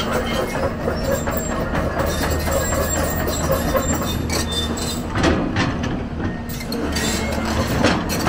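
Komatsu PC240LC crawler excavator's diesel engine running steadily while the machine travels, its steel track chains clanking and squeaking.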